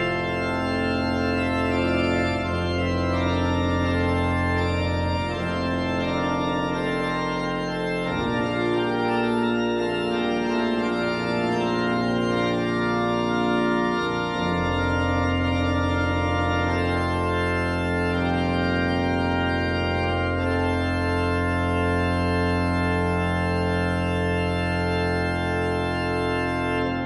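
Pipe organ playing sustained chords over a deep pedal bass, the harmony shifting every few seconds, then a final chord held for the last dozen seconds.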